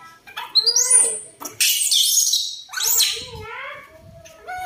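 Baby macaques squealing: a run of high, wavering cries with a harsh, noisy screech about a second and a half in, then quieter near the end.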